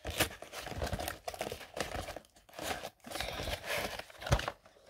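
Crinkling and rustling of paper and packaging as a cardboard scrapbook kit box is handled and its contents are packed back in. There are irregular rustles and a few sharper knocks, one near the start and one near the end.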